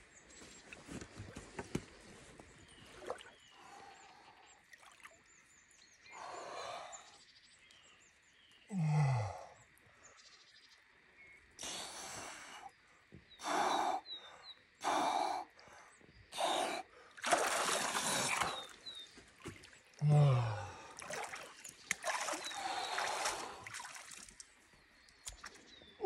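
A man's short, heavy breaths and gasps from the shock of ice-cold water, with two short groans that fall in pitch, and some splashing and trickling of water as he lowers himself in and swims.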